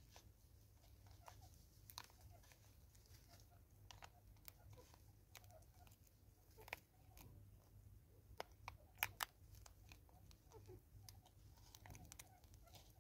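Faint, scattered small clicks and crunches of a vervet monkey feeding: chewing seed and its hand scrabbling in the seed mix inside a cut-off plastic bottle. A couple of sharper clicks come close together about nine seconds in.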